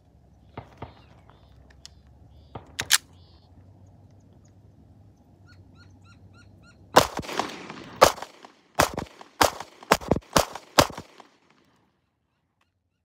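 Metallic clicks as a 7-round magazine is seated in a Walther PPS M2 9mm pistol and the slide is closed. About seven seconds in, the pistol fires seven shots in quick succession, about half a second to a second apart, each with a short echo, emptying the magazine so the slide locks open.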